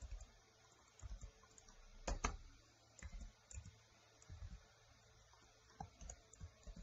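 Faint keystrokes on a computer keyboard, typed in short irregular runs of a few clicks with brief pauses between.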